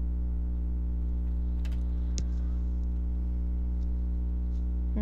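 A steady low droning tone, unchanged throughout, with a few faint light clicks about two seconds in.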